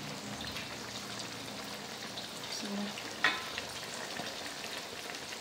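Food sizzling in a pan on the stove, a steady crackling hiss, with one sharp clink a little past halfway.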